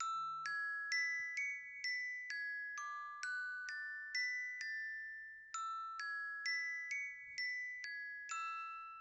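A countdown timer's alarm going off: a bright chiming melody of single bell-like notes, about two a second, starting out of silence. It plays in two phrases with a short break about five seconds in, and the last note rings out.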